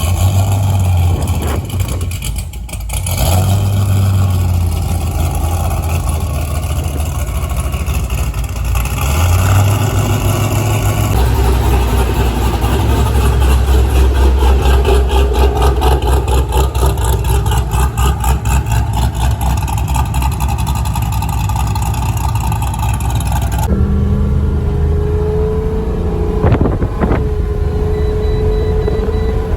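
2006 Pontiac GTO's 6.0 LS2 V8, fitted with a Brian Tooley Racing Stage 3 cam and American Racing long-tube headers, running and being revved. The sound changes abruptly near the end, with wind noise joining in.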